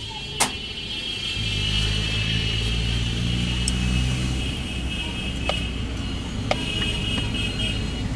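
A motor vehicle engine running steadily, coming in about a second and a half in, over a steady high-pitched whine. There is a sharp click near the start and two light knocks later from a knife on a cutting board.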